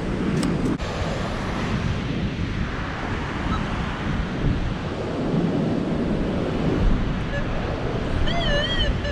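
Wind buffeting the microphone over the noise of surf breaking on a beach. There are a couple of clicks about half a second in, and a short warbling tone near the end.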